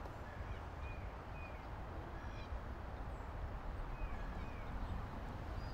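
Outdoor ambience: a steady low rumble with small birds chirping briefly now and then.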